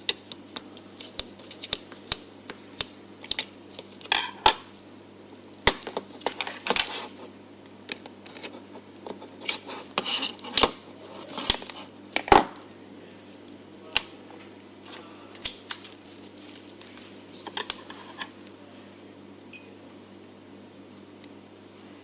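Small metal tools and electronic parts clicking and clinking on a workbench during circuit-board repair work, with irregular sharp clicks and short scrapes that thin out after about 18 seconds. A steady low hum runs underneath.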